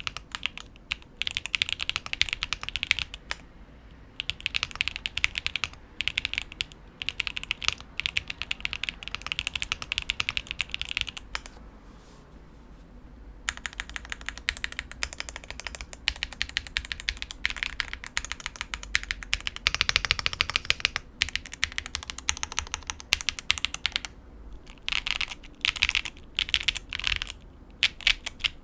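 Typing on a Qk65 mechanical keyboard with Pure Berry 62g linear switches on a POM plate and ABS keycaps: rapid runs of keystrokes with a short pause about halfway through.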